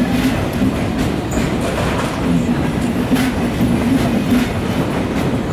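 ICE 2 high-speed train rolling past over the station-approach tracks: a steady rumble of wheels on rail with a low hum, and the wheels clacking irregularly over the rail joints and points.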